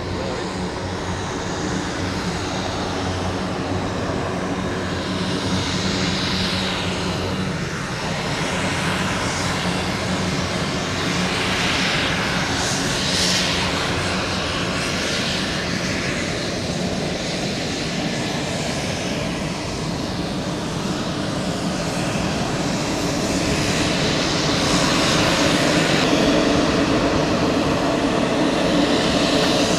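Pilatus PC-12 NG's single Pratt & Whitney PT6A turboprop engine and propeller running steadily, with a low propeller hum under a shifting turbine whine. It grows louder over the last few seconds.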